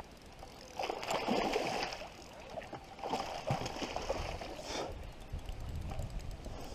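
A hooked pike of over 70 cm thrashing and splashing at the surface as it is brought to the landing net beside an inflatable boat. The splashing comes in two bouts, about a second in and again from about three to five seconds in.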